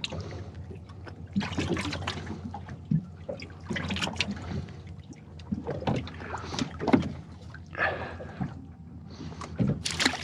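Water slapping against a small fiberglass boat's hull, with irregular knocks and rustles of handling on deck, and a splash at the water surface near the end.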